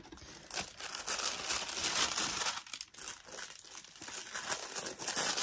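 White tissue paper inside a shoe box rustling and crinkling as it is handled, a continuous papery rustle that eases briefly about halfway through.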